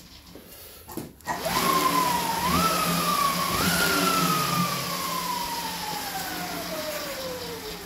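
Dog Trotter Evo Pro slatmill's belt spun by hand: a whine that jumps up in pitch with each push, three pushes about a second apart, then glides slowly down in pitch as the belt coasts.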